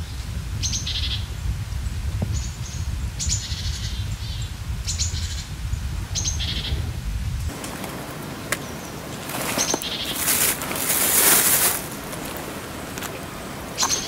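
Small forest birds giving short, high calls every second or two, over a low rumble. In the second half, loud rustling and crackling as someone kneels and moves in dry fallen leaves, picking oyster mushrooms from a log.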